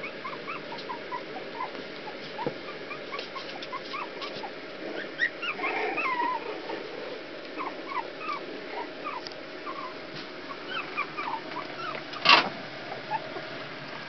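Young Rat Terrier puppies whimpering and squeaking, many short high cries one after another, with a busier spell about five to six seconds in. A single loud thump comes about twelve seconds in.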